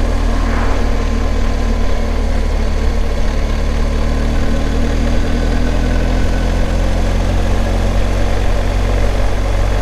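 BMW R1250 GS Rallye's boxer-twin engine running steadily while cruising, with a constant rush of wind and road noise on the helmet-mounted camera's microphone.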